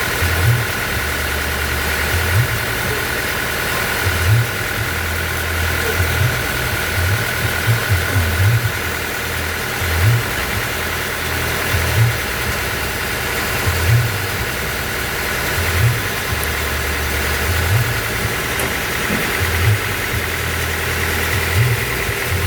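Band sawmill machinery running steadily: a continuous mechanical drone with a steady high whine, and a low pulse coming back every second or two.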